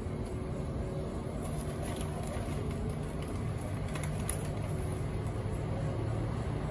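Steady low outdoor background rumble, with a few faint ticks about two and four seconds in.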